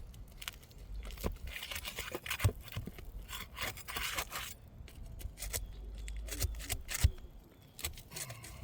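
A roof shingle being pried loose: scraping and tearing as it is worked free of its sealed bond, with several sharp clicks and knocks from the work.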